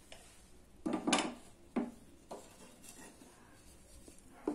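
Wooden spoon stirring soup in an aluminium pressure cooker, knocking and scraping against the pot a few times, the loudest knock about a second in.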